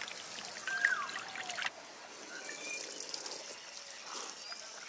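Birds calling: about a second in, a loud call holds a note and then drops in pitch, with sharp clicks around it, and a few faint short chirps follow over a steady outdoor hiss.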